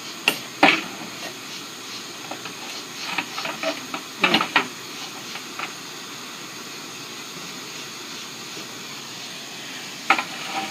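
Steady hiss with sharp light clicks and clinks of copper pipe and elbow fittings being handled and pushed together: two early on, a cluster about three to four and a half seconds in, and a pair near the end.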